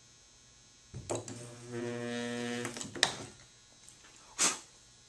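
Dent-puller stud welder firing a pull stud onto the steel body panel: a click about a second in, then a steady electrical hum for nearly two seconds while the weld current flows. A sharp click follows, then a short burst of noise about a second later.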